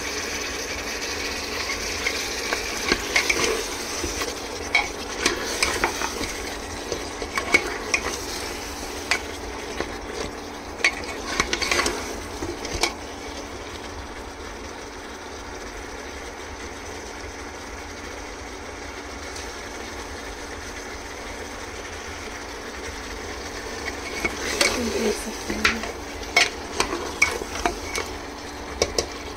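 Mutton sizzling as it fries in oil in a pot, stirred with a spoon that scrapes and knocks against the pot. The stirring comes in two spells, with a stretch of steady sizzling alone in the middle.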